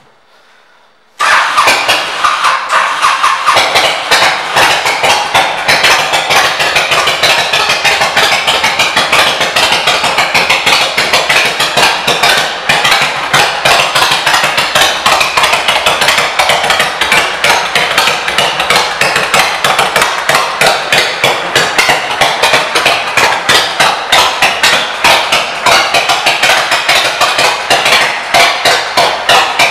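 Honda VTX 1300 V-twin engine with aftermarket exhaust pipes, coming in suddenly about a second in and then idling with a fast, uneven, knocking pulse of exhaust beats.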